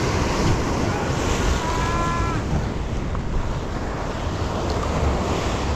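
Sea surf washing and breaking against the rocks of a stone breakwater, with wind buffeting the microphone. A brief high squeal sounds about two seconds in.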